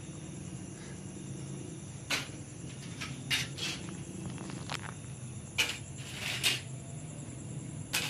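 Crickets chirping steadily at night over a low hum, with about eight short clicks and scuffs scattered through it.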